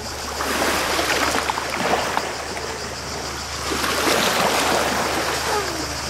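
Small sea waves lapping and splashing against a wooden jetty, a crackling wash that swells twice.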